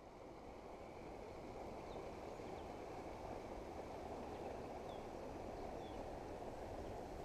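Steady rush of flowing canal water, fading up over the first second, with a few faint bird chirps.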